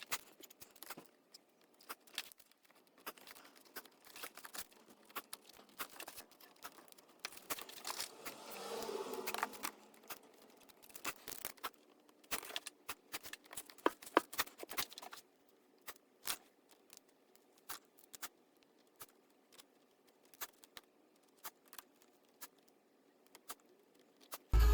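Hands working adhesive foam weatherstrip around a car door speaker: scattered small clicks and taps, with a longer rustling scrape about eight to ten seconds in.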